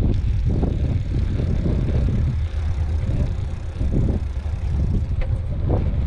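Wind buffeting the microphone on a moving bicycle: a steady low rumble with irregular gusts surging through it.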